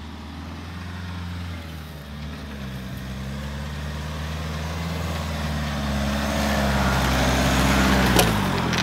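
Off-road SUV engine running under load as the vehicle is driven up the dirt track toward the listener, growing steadily louder, with one sharp knock near the end.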